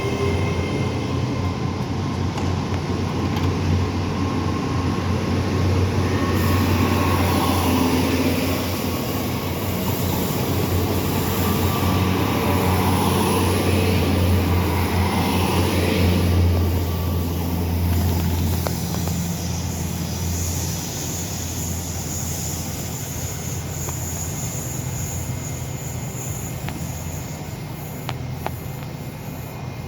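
Diesel train running through the station, its engines giving a steady low hum. The sound is loudest about 16 seconds in, then fades as the train draws away.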